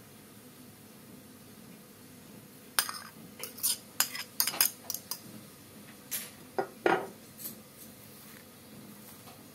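A metal fork clinking and scraping against a small glass bowl and a dish as diced onion is scraped out, a quick run of sharp taps starting about three seconds in and lasting about four seconds.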